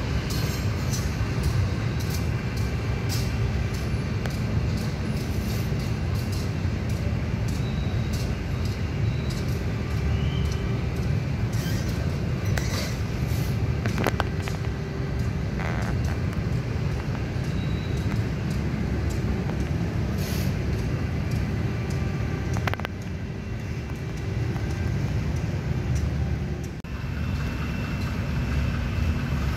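Heavy diesel engine running steadily, a low rumble, with scattered sharp clicks on top.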